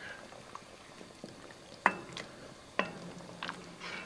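Wooden spoon stirring thick pork and beans in an enamelled cast-iron Dutch oven, over a faint simmer. The spoon knocks sharply against the pot about two and three seconds in, each knock followed by a brief low ring from the pot, with a couple of lighter taps near the end.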